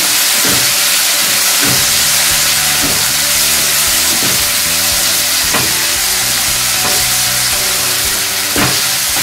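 Chopped onion, tomato, ginger, garlic and green chillies sizzling in oil in a kadhai, stirred with a slotted spatula that scrapes and taps against the pan about every second or so.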